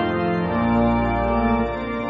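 Church organ playing slow held chords over a deep bass note, the harmony shifting every second or so.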